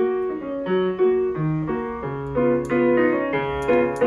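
Solo piano music: a melody of quick single notes over held lower notes.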